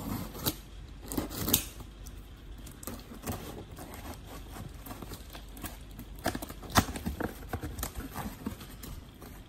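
Box cutter slitting packing tape on a cardboard shipping box, a few loud scrapes about a second and a half in. Later the cardboard flaps are pulled open, with a cluster of sharp cardboard knocks and rubbing around seven seconds in.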